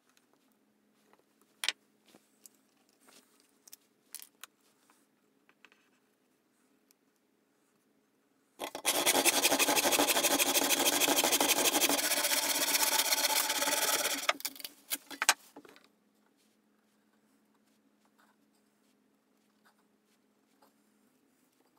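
Handsaw sawing steadily through a birch handle blank for about six seconds in the middle, ending in a few sharp knocks. Before and after it there is only faint pencil scratching and light taps.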